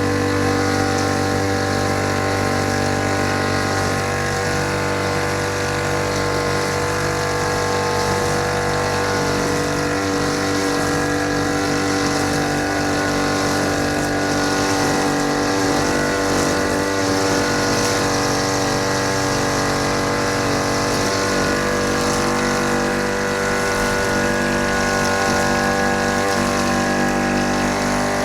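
Small petrol engine of a grass-cutting machine running steadily at a constant speed.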